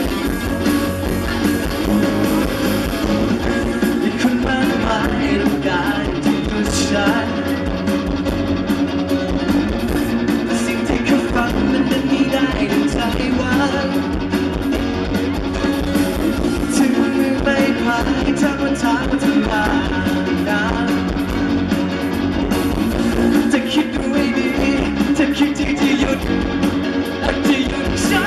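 Live rock band playing loudly: a male singer on a microphone over electric guitar and a drum kit.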